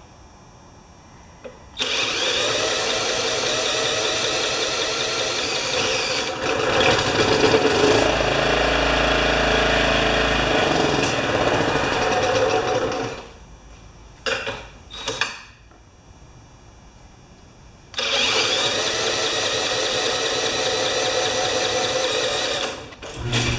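A drill spinning over the Honda HRA214 lawnmower's single-cylinder engine in two long runs, about eleven seconds and then about five, with a couple of short bursts between them. The engine is being cranked because it won't start.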